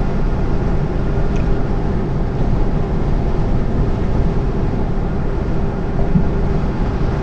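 Cab noise of a lorry cruising on a motorway: steady engine drone and rolling road noise, with a faint steady hum.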